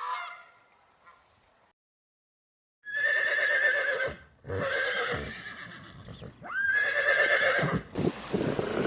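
Horse whinnying: three long, quavering neighs of a bit over a second each, the last starting with a rising squeal.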